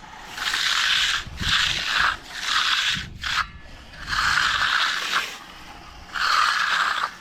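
Hand finishing tool scraping over fresh concrete in about six separate strokes, each under a second and unevenly spaced, as the slab gets a finishing pass.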